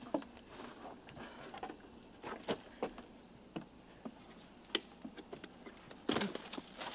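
Crickets chirring steadily until about six seconds in, with scattered knocks and scuffs of people climbing down a wooden ladder. A denser cluster of thumps comes near the end.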